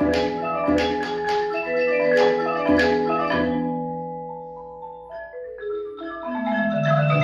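Percussion ensemble playing marimbas and other mallet keyboard instruments: a run of accented struck chords with ringing notes for the first few seconds, then a softer stretch in which a line of low notes steps downward, growing louder again at the very end.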